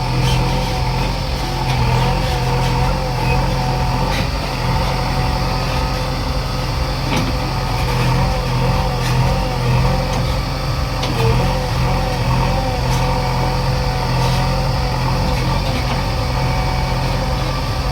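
JCB 3DX backhoe loader's diesel engine running steadily, with a wavering higher whine over the engine note.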